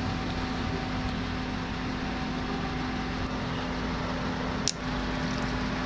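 Steady mechanical hum of a motor or fan, holding one low tone, with a single sharp click near the end.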